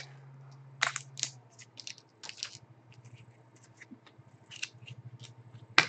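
Hockey trading cards handled and sorted by hand: scattered soft card rustles and flicks, with one sharp card snap just before the end.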